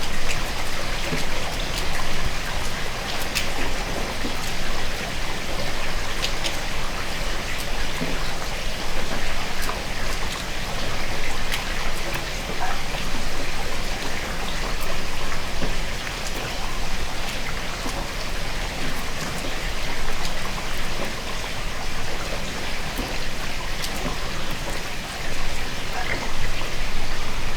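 Heavy rain falling steadily: a dense hiss of rain with many sharp individual drops spattering on surfaces.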